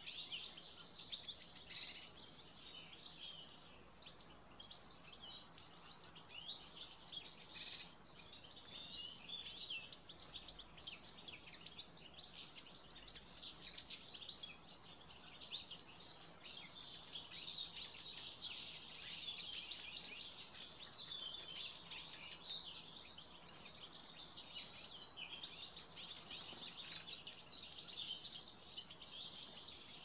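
Several small songbirds singing and calling together in a dense, continuous chorus of high warbles and trills. A sharp group of two or three very high notes cuts through every few seconds.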